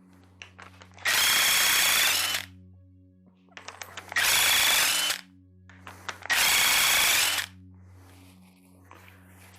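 Impact wrench spinning bolts off a Chevy 350 small-block engine during teardown, in three bursts of about a second each.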